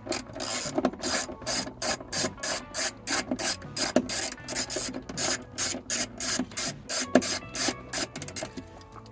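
Socket ratchet on a long extension clicking in quick, even back-and-forth strokes, about three a second, loosening the 13 mm battery hold-down bolt; it stops about eight and a half seconds in.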